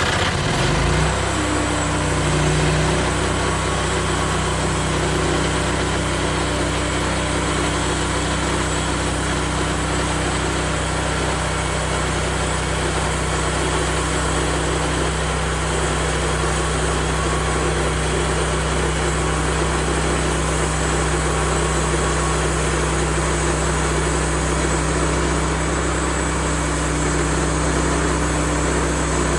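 Woodland Mills HM136MAX portable band sawmill's gas engine coming up from idle to full throttle in the first second or so, then running steadily at high speed.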